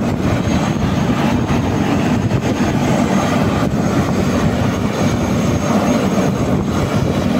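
Helicopter running loud and steady, a continuous rough roar of rotor and turbine engine.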